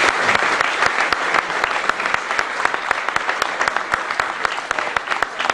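Audience applauding, many hands clapping, slowly fading toward the end.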